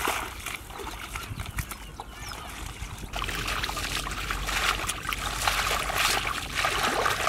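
Shallow water splashing and trickling as hands and legs move through a flooded rice field: irregular small splashes, sparse at first and busier from about three seconds in.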